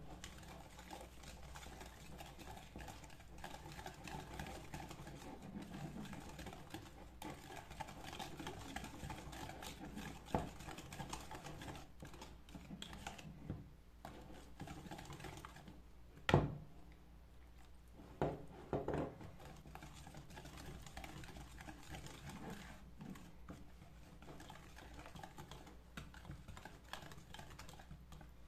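Wire whisk beating thin muffin batter in a plastic bowl: a steady soft rattle of the wires against the bowl, with a few sharper knocks, the loudest about sixteen seconds in.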